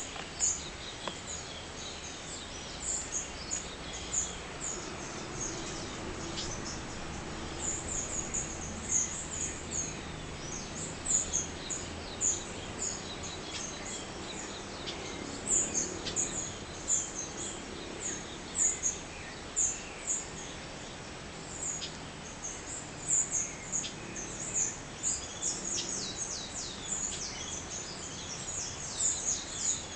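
Dawn chorus of birds: many short, high chirps repeating over a steady background noise, growing busier near the end.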